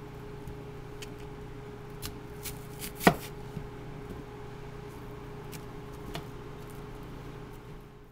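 Kitchen knife slicing through an onion on a cutting board: a few scattered taps of the blade against the board, the loudest a sharp knock about three seconds in, over a steady background hum.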